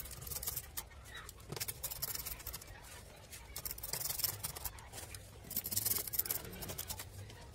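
Faint scattered clicks, scrapes and rustling from hand work refitting the scooter's plastic transmission covers.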